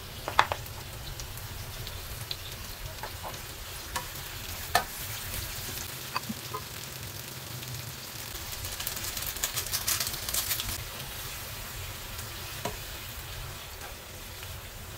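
Sliced onions and tomatoes frying in a frying pan with a steady sizzle, with sharp clicks of a spoon and spatula against the tub and pan near the start. The sizzle swells into louder crackling for a couple of seconds about nine seconds in, as pieces of meat go into the hot pan.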